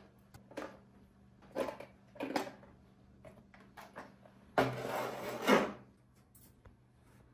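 The hard plastic body shell of an RC truck being unclipped and lifted off its chassis on a wooden table. A few light knocks and clicks come first, then a louder clatter of plastic lasting about a second a little past the middle.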